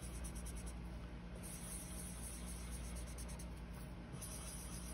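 Felt-tip marker rubbing on paper as polka dots are coloured in: quick short strokes for the first second or so, then longer stretches of steady back-and-forth scribbling.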